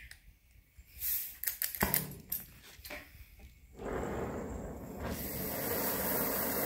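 A few clicks and knocks, then an oxy-fuel cutting torch lit and burning with a steady rushing hiss that grows louder and brighter about five seconds in.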